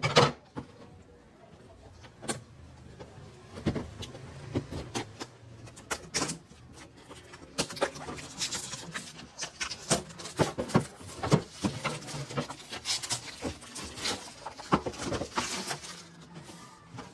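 Plastic shrink-wrap being torn and peeled off a cardboard box: irregular crinkling and crackling, with a few knocks from the box being handled, busiest in the second half.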